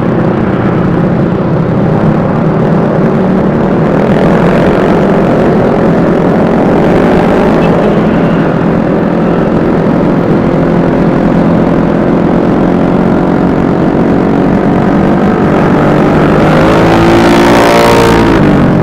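Motor scooter engine running steadily while riding in traffic. Near the end a louder engine rises in pitch and falls away with a brief rush of noise.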